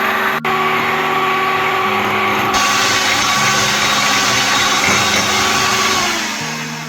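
Electric kitchen mixer motor running steadily, with background music notes underneath; the sound fades away near the end.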